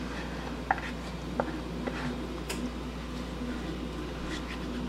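Spatula scraping a thick mayo dressing into a bowl of broccoli and bacon, with a few light clicks and taps against the bowl over a steady low hum.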